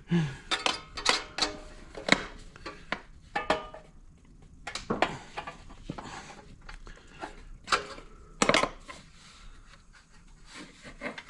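Hand tools and metal parts clinking and knocking at an irregular pace, some strikes ringing briefly. There are a few quieter pauses, one around four seconds in and another near the end.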